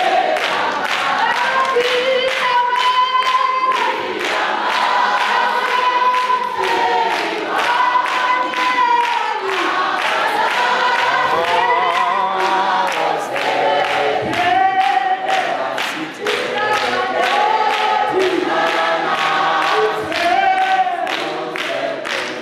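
A woman leads a gospel song through a microphone and PA, with a congregation singing along in chorus. Steady rhythmic hand-clapping keeps time throughout.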